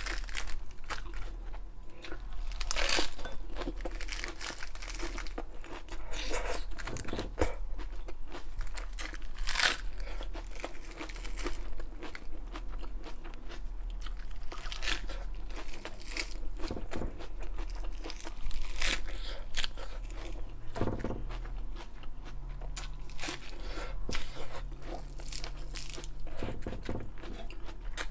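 Raw iceberg lettuce leaves being bitten and chewed close to the microphone: crisp, watery crunches every few seconds, the loudest at each fresh bite, with steady chewing between.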